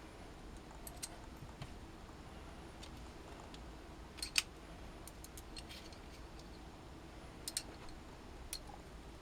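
A few faint, sharp metallic clicks and taps of a screwdriver and screw working a motherboard mounting screw into the PC case, the loudest about four seconds in and a quick pair near the end, over a low steady hum.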